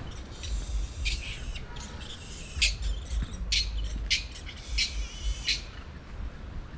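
Birds calling: a run of about a dozen short, harsh calls at irregular intervals, with a low rumble underneath.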